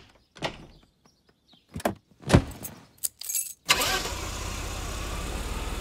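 A few separate knocks and thuds as the car doors are shut, the loudest about two and a half seconds in. Then, a little over halfway through, the car's engine starts and keeps running steadily.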